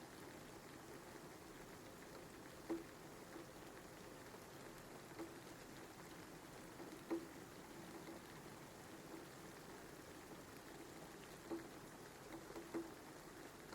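Light, steady rain with single drops now and then landing louder, a few seconds apart.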